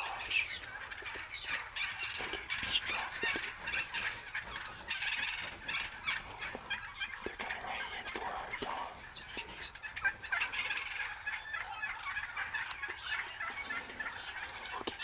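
A flock of wild turkeys calling over one another: strutting toms gobbling amid a constant chatter of many short calls.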